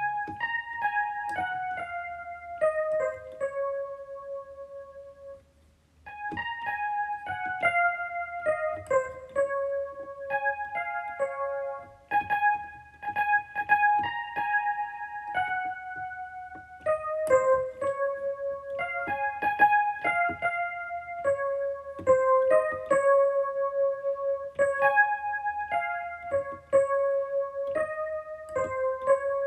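Instrumental music: a keyboard with a piano sound playing a melody of short, separate notes. It fades out briefly about five seconds in, then starts again.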